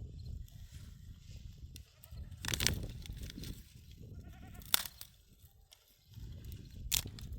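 Livestock bleating, a short wavering call about four seconds in, over a low steady rumble, with a couple of sharp clicks.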